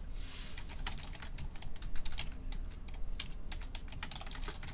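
Typing on a computer keyboard: an irregular run of key clicks, with a short rustle at the start and one louder tap about two seconds in.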